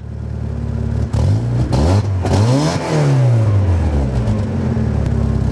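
Mazda Miata's engine idling and revved once: the pitch climbs from about a second in, peaks near the middle and falls back to a steady idle.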